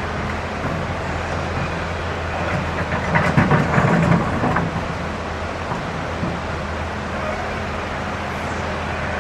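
Excavator's diesel engine running steadily, with a burst of clattering stones about three seconds in as it digs river rock.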